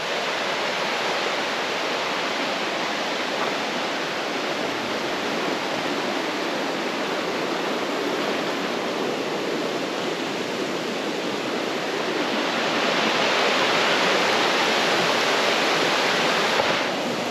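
Creek water rushing steadily. It grows louder and brighter about twelve seconds in, then drops back just before the end.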